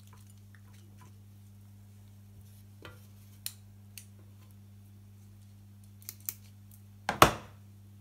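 Plastic-tipped kitchen tongs clicking a few times as they pick cooked chocolate pancake strips off a crepe griddle, then one loud clatter a little after seven seconds in as the tongs are set down. A steady low hum runs underneath.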